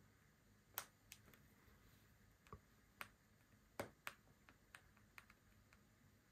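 Faint, irregular light clicks and taps, about a dozen spread over six seconds: a diamond-painting drill pen picking resin diamonds from a tray and pressing them onto the adhesive canvas.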